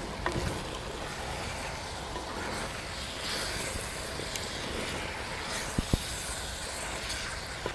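Shredded cabbage with chilli powder being stirred in a hot clay pot: a steady sizzle and rustle of the vegetables, with a few sharp clicks, two of them close together about six seconds in.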